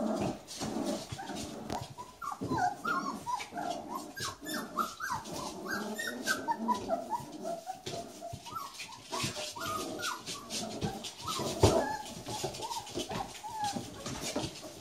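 A litter of Catahoula leopard dog puppies whimpering and yipping as they play, with many short, high calls overlapping. Scattered clicks and knocks run under the calls, and a louder thump comes about twelve seconds in.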